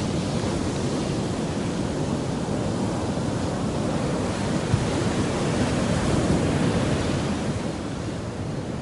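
Steady rush of sea surf breaking on the beach, mixed with wind on the microphone, swelling slightly about six seconds in.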